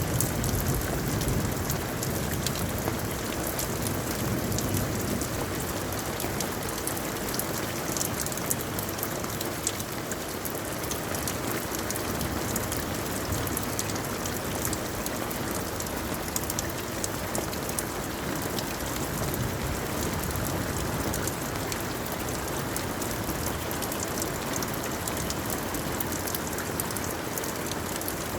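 Steady rain falling, individual drops heard as many fine ticks over an even hiss.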